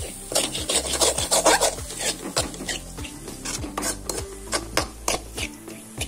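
A spoon scraping and stirring scrambled egg and drumstick leaves around a pan, in repeated strokes a few a second.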